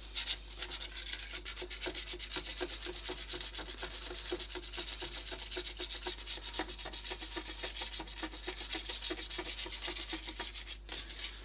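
Knife blade held flat, scraping paint off a bakelite radio case in quick repeated strokes, with a brief pause near the end.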